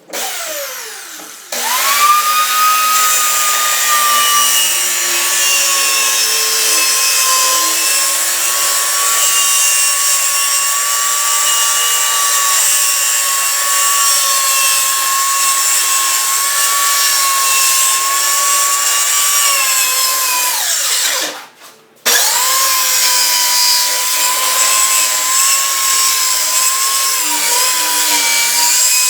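Electric power saw cutting a sheet of 3/4-inch plywood: the motor spins up to a steady high whine whose pitch sags slightly under load. It winds down about 21 seconds in, then starts again a second later to continue the cut.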